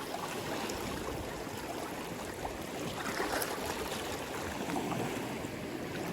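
Incoming sea tide washing and trickling around shoreline rocks: a steady wash of water with a few faint clicks.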